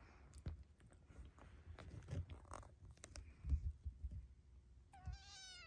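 Kittens nursing on their mother cat: scattered small clicks and soft thumps of suckling and shifting, then near the end one short, high kitten meow that falls slightly in pitch.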